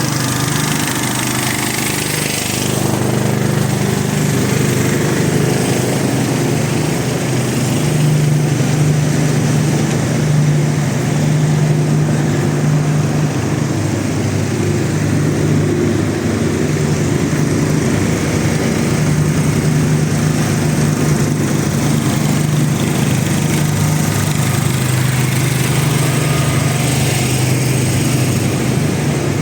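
Portable generators running steadily, a continuous loud engine drone, as they stand in for the mains supply during a power outage.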